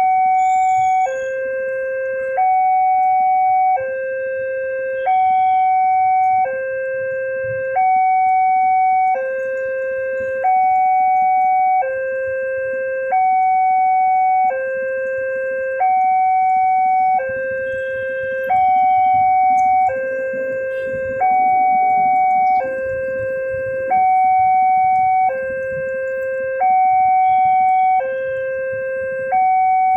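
Railway level-crossing electronic warning alarm sounding its steady two-tone cycle, a higher and a lower tone alternating, each held about a second and a quarter: the signal that a train is approaching and the barrier is closed.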